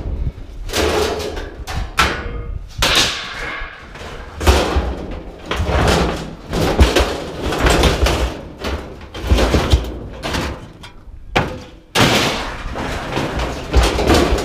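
Scrap metal being unloaded by hand from a pickup bed and tossed onto a pile: repeated, irregular clanks and bangs of metal pieces striking metal and the ground.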